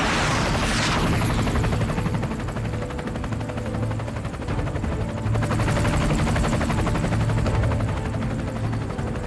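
Military attack helicopters flying, their rotors chopping in a fast, even beat over the turbine noise. A falling whoosh in the first second comes as one passes close by.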